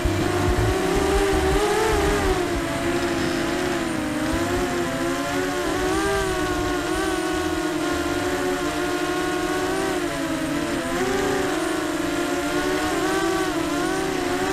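Eachine Falcon quadcopter's motors and propellers whining, the pitch wavering up and down with the throttle, heard from the onboard camera. Wind rumbles on the microphone underneath, strongest near the start.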